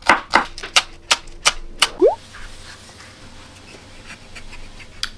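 Chef's knife chopping spring onions on a wooden cutting board: rapid sharp knocks, about five a second, for the first two seconds. After a short rising squeak it turns much quieter, with faint soft sounds of a wooden rolling pin working dough on a silicone mat.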